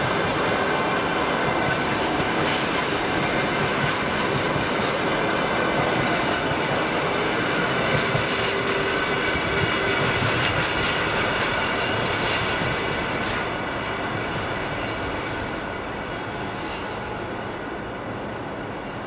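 Long-distance passenger coaches of a fast train rolling past, their wheels rumbling and clattering on the rails. The sound fades from about two-thirds of the way in as the rear of the train draws away.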